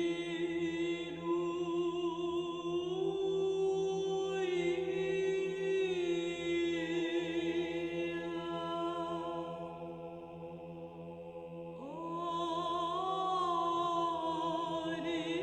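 Background music of long, slowly changing held vocal notes with vibrato, like a choir. A new chord swells in about twelve seconds in.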